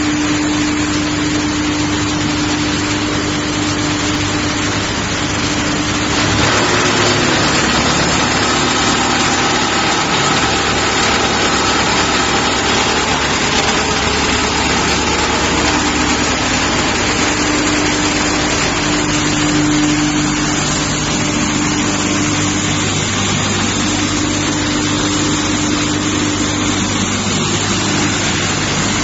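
Large 110 kW industrial wood chipper running under test: a loud, steady machine noise with a constant hum. About six seconds in the sound changes and the hum drops out, then it comes back from around sixteen seconds.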